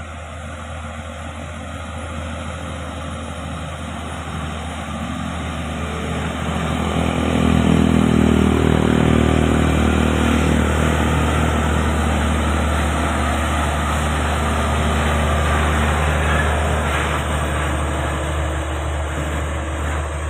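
Diesel engine of a FAW heavy tractor unit pulling a laden semi-trailer, driving slowly past. It grows louder as the truck approaches and is loudest from about eight seconds in, then stays steady.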